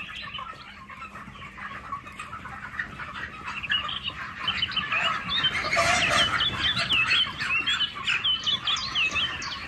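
A flock of broiler chickens clucking and peeping. The calls grow louder and busier about halfway through, ending in a quick run of short, high, rising cries.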